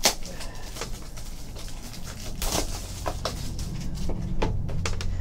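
Plastic shrink wrap crinkling as it is pulled off a trading-card box, with scattered crackles and light taps of the cardboard box being handled, over a steady low hum.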